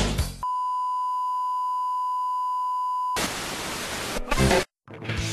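Television test-signal beep, one steady tone held for almost three seconds, followed by loud TV static hiss that cuts off abruptly. Music starts near the end.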